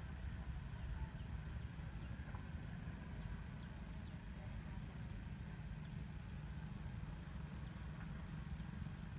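Wind buffeting the microphone: a low, uneven rumble.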